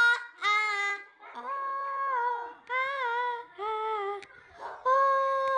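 Female voice singing a children's cartoon song in five short phrases, the last note held steady for about a second near the end.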